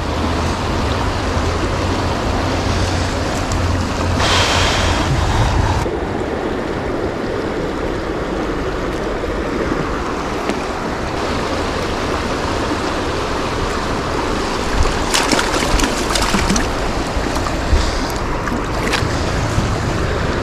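Kern River water running steadily as an even rush of noise. A few short clicks and knocks come in the later seconds.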